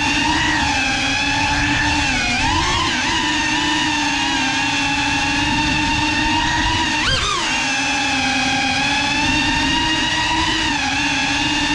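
GEPRC CineLog 35 cinewhoop's brushless motors and ducted propellers whining steadily in flight. The pitch swoops up and back down briefly about two and a half seconds in, and more sharply about seven seconds in, as the motors speed up.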